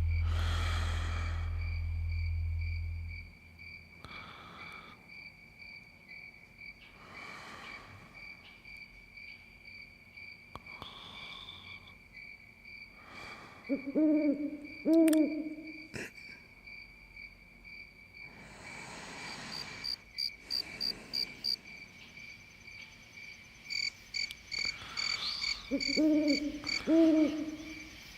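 Night-time soundscape: an owl hooting in two-note pairs, twice, over a steady high cricket chirr, with slow soft snoring breaths every few seconds. A low held music note ends about three seconds in.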